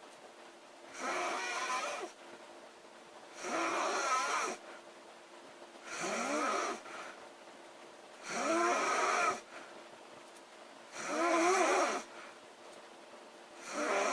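A woman snoring loudly in a steady rhythm, about one snore every two and a half seconds, six in all. Each snore lasts about a second, with a pitch that wavers up and down, and there are quieter gaps between them.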